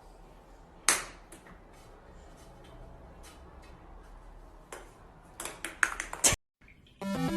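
A few sharp clicks or taps over a faint low hum: a single loud one about a second in, then a quick cluster a couple of seconds before the end. Music starts just before the end.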